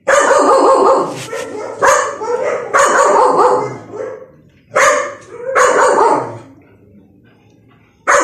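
A dog barking in loud, drawn-out bursts, about six of them with short pauses between.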